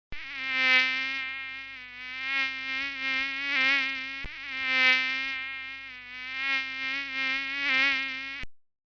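Mosquito in flight: a steady, high-pitched whining buzz of its wingbeats that swells and fades several times, as if the insect comes close and moves away, then cuts off suddenly near the end.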